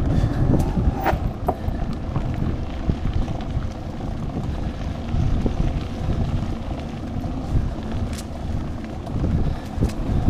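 Wind rushing over the microphone and the rumble of mountain-bike tyres rolling over a dirt trail, with a few sharp clicks and rattles from the bike.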